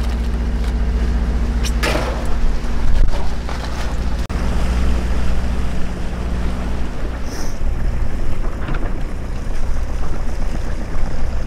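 A sailboat's engine running at a steady drone, with water rushing past the hull and wind on the microphone. A plastic bag crinkles in the first few seconds.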